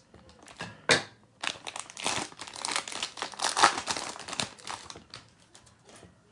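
A Panini Contenders NBA trading-card pack wrapper being torn open and crinkled, with a sharp rip about a second in and then several seconds of dense crinkling that tails off near the end.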